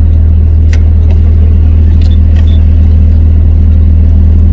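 Steady low engine drone of a tour bus, heard from inside the bus, with a few faint clicks over it.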